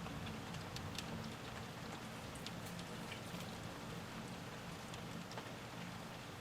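Light, steady rain, heard through closed windows, with scattered single drops ticking sharply on a hard surface and a low steady hum underneath.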